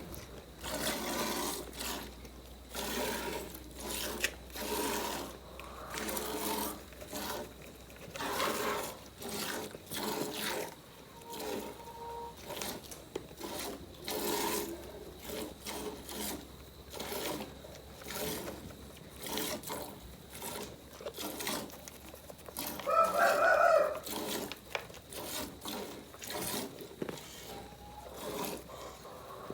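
Dairy goat being milked by hand: milk squirts hitting the pail in a steady rhythm, about one or two strokes a second. A loud animal call breaks in for about a second near the end.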